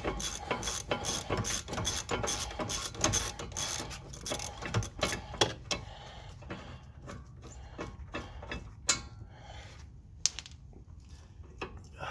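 Hand ratchet wrench clicking as it turns out a bolt on a rear disc brake caliper bracket: a quick run of clicks for about six seconds, then slower, scattered clicks.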